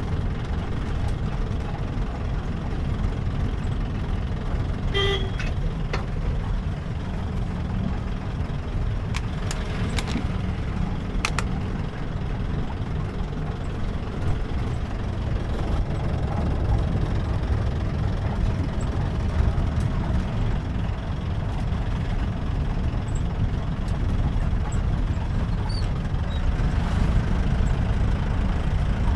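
Jeep engine running and road noise as the jeep drives along, a steady low rumble with a few sharp rattling clicks. A short horn toot sounds about five seconds in.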